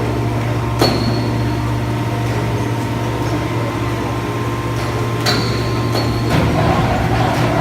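Hydraulic scrap metal baler running with a steady low hum from its power unit, broken by several sharp metal clanks that ring briefly as scrap shifts and strikes the press.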